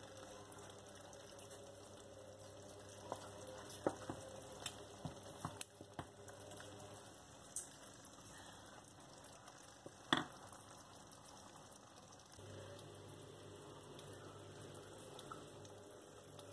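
Wooden spoon knocking and scraping against the pot and a ceramic bowl as thick kurma stew is ladled out, with wet slops of sauce: a run of small knocks, then one sharper knock about ten seconds in. A steady low hum runs underneath, dropping away early on and coming back about twelve seconds in.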